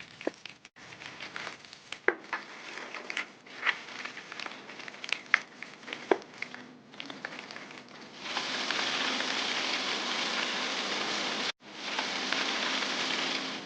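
Spiced chicken pieces frying in hot oil. For the first several seconds there are scattered pops and crackles. From about eight seconds in comes a loud, steady sizzle, with a brief break near the end.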